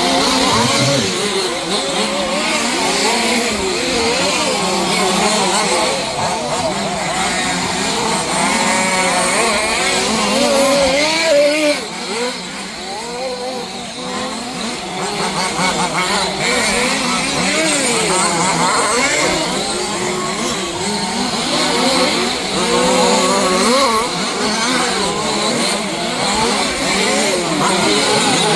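Several 1/5-scale large-scale RC cars racing, their small petrol two-stroke engines buzzing and revving up and down, overlapping, as they accelerate and brake around the track. The sound eases briefly about halfway through before building again.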